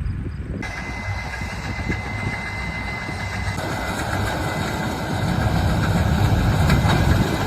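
Combine harvester running: a steady low engine rumble under a mechanical whine that cuts in suddenly about half a second in, getting fuller about three and a half seconds in.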